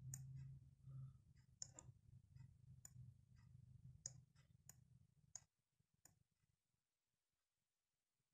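Faint computer-mouse button clicks, scattered and irregular, about eight in all, over near silence. A faint low hum underneath cuts off about five and a half seconds in.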